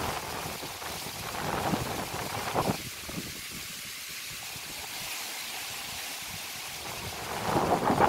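Strong wind gusting through coconut palms and trees, with the gusts buffeting the microphone. It swells twice, between about one and three seconds in and again near the end, and is calmer in between.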